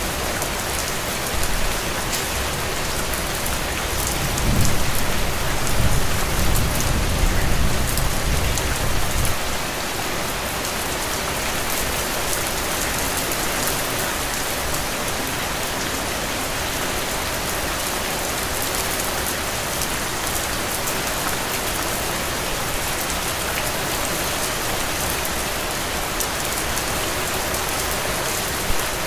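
Heavy, steady rain falling on the ground. A low rumble swells for about five seconds a few seconds in.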